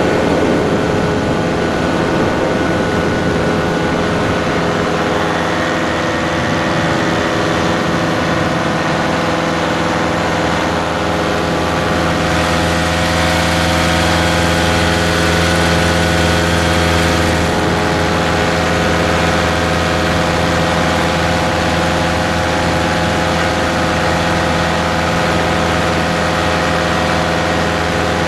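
Paramotor engine and propeller running steadily in flight, close to the microphone. Its sound grows fuller and louder for about five seconds midway, then settles back.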